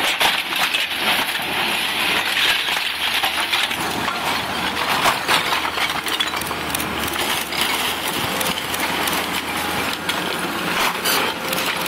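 Excavators tearing into a heap of demolition debris: continuous cracking, splintering and clattering of broken wood and rubble, over a steady low hum of the machines' diesel engines.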